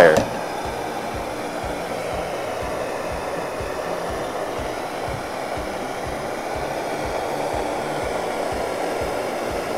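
Blowtorch flame burning with a steady hiss as it heats a strip of metal.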